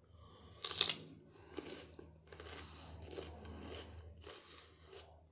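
A bite into a raw celery stalk: one loud crunch about a second in, then quieter crunchy chewing that comes and goes.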